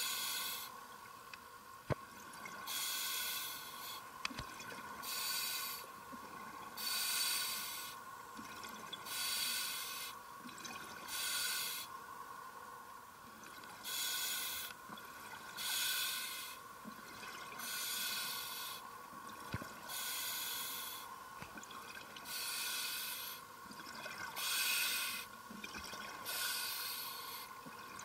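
Scuba diver breathing through a regulator underwater: recurring bursts of hiss and bubbles about a second long, every one to two seconds.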